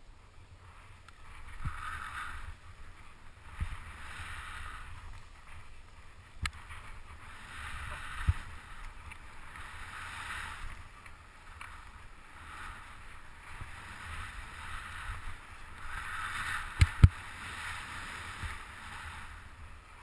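Skis turning through deep powder snow: a swishing hiss that swells with each turn, roughly every two seconds, over a low wind rumble. A few sharp knocks cut in, the loudest two close together near the end.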